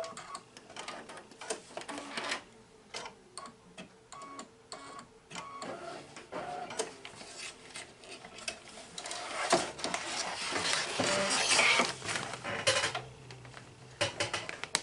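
Irregular clicks and knocks, with crinkling, as a stopped embroidery machine's hoop and its paper-like tearaway stabilizer are handled. The sound is busiest a few seconds before the end.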